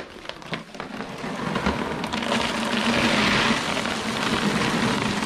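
Dry dog kibble pouring from a large bag into a clear plastic storage bin: a dense patter of pellets hitting the plastic and each other. It starts about a second in and grows louder, strongest in the middle.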